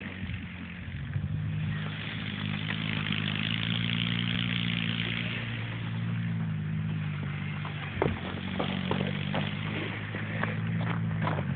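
Moped engine running steadily under a hiss, with a few sharp clicks in the second half.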